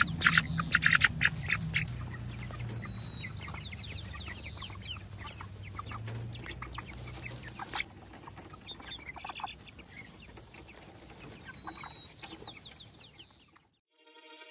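A flock of young Freedom Ranger meat chickens clucking, with repeated short high calls that fall in pitch. Sharp clicks in the first second and a half; the sound stops suddenly shortly before the end.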